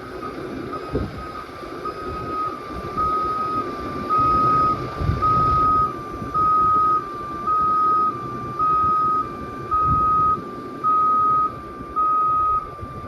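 Electronic warning beeper sounding a single high tone in even pulses, about one every second and a half, over a low vehicle rumble; the beeps grow louder a few seconds in.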